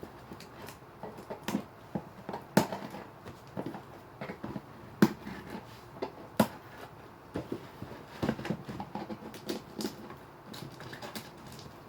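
Cardboard shoebox being opened and handled: irregular taps, knocks and rustles, with three sharper knocks spread through the middle.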